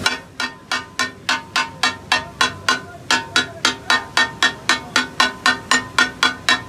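Metal spatulas striking a flat iron tawa in an even takatak rhythm, about three and a half ringing clanks a second, chopping brain masala on the griddle.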